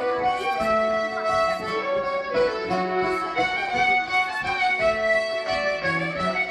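Live traditional folk band playing a tune together: fiddles and a button accordion carry the melody over a plucked bouzouki.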